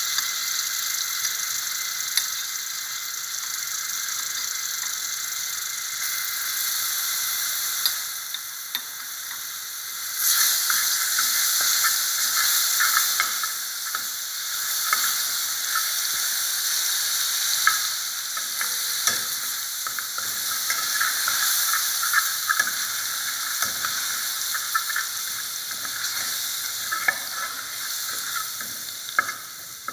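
Garlic sizzling and crackling as it fries in hot oil in a stainless steel pot, with a metal spoon stirring through it. The sizzle grows louder and busier about a third of the way in.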